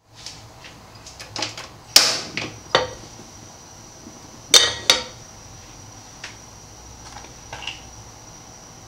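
A nonstick frying pan is set and shifted on a gas stove's metal grate, making a few light metal clinks and knocks. The loudest come about two seconds in and again twice about four and a half seconds in. A faint steady high whine runs underneath.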